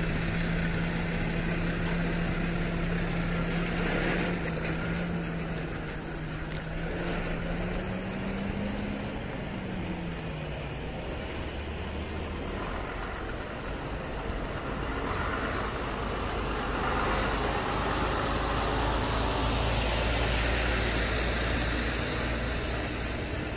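Heavy-haul diesel tractor units with multi-axle trailers. First an engine hums steadily, rises in pitch briefly about nine seconds in, then fades away. A Mercedes-Benz tractor unit pulling a loaded multi-axle trailer then passes close by, its deep engine rumble and tyre noise building to the loudest point near the end, with a brief hiss about four seconds in.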